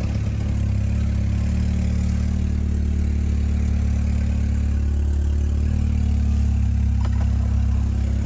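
Volkswagen Golf 7 GTI's turbocharged 2.0-litre four-cylinder running steadily at low revs, heard from inside the cabin.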